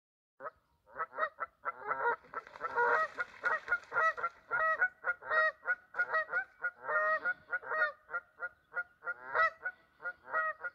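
Waterfowl, goose-like, honking in a rapid, unbroken series of short calls, several a second.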